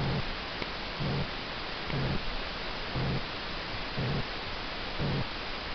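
Domestic cat purring while being stroked, the low purr swelling about once a second with its breathing, over a steady hiss.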